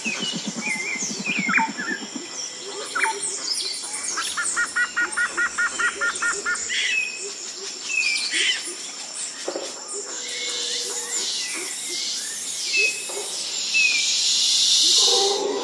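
A chorus of wild birds calling: assorted chirps and whistled glides, with a rapid run of repeated notes from about four seconds in to nearly seven seconds, over a steady high tone.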